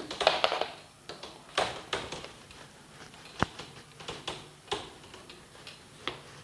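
A whiteboard being wiped clean in quick repeated strokes: a dozen or so short rubbing swishes, with one sharp tap about three and a half seconds in.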